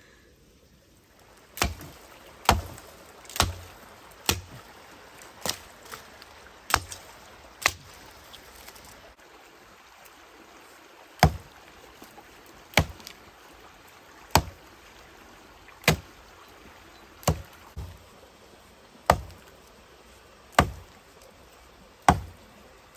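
Repeated heavy chopping blows, each a sharp strike with a dull thud. About one a second at first, then after a short pause about one every second and a half.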